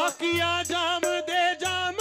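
Qawwali music: a man singing long, bending vocal lines over a harmonium's held notes, with a dholak keeping a steady beat.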